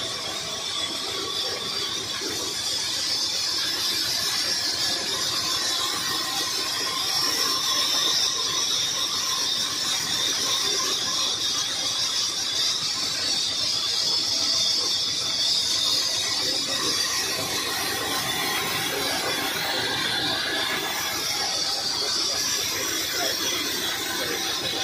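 Horizontal band sawmill running, its blade cutting through a log with a steady high-pitched squeal.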